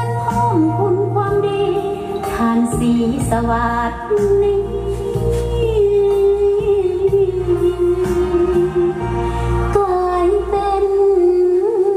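A woman singing live into a handheld microphone over backing music, a slow melody of long held notes above a steady bass line.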